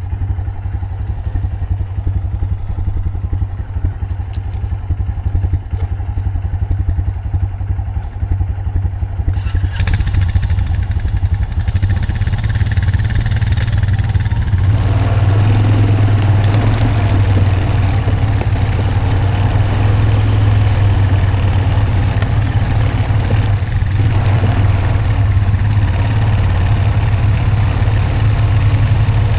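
Honda Foreman 520 ATV's single-cylinder engine running steadily while towing a log skidding arch loaded with a hickory log, growing louder about halfway through.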